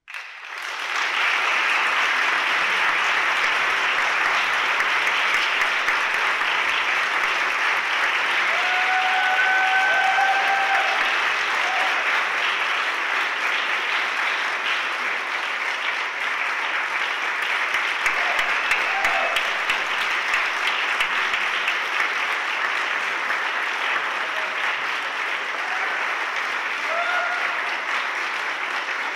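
Concert audience applauding, starting abruptly and holding steady throughout, with a few brief voices rising over the clapping.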